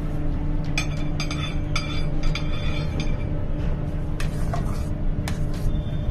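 Metal spatula clinking and scraping against a steel cake turntable and bowl while whipped cream is spread on a cake, in clusters of sharp ringing taps, over a steady low hum.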